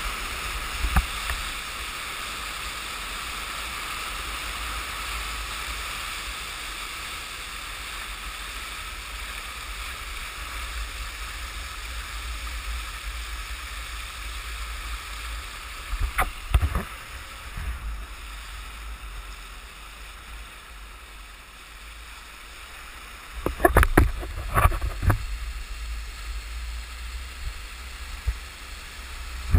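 Water rushing and hissing steadily around a stand-up paddleboard riding a tidal bore wave, over a low rumble. Louder splashes and knocks come about halfway through and again in two clusters near the end.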